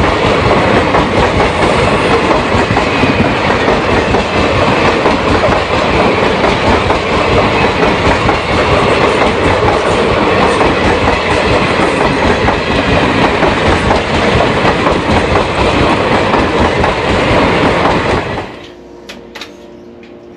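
Train running on rails, a loud steady noise that cuts off suddenly near the end, followed by a quieter room with a couple of short clicks.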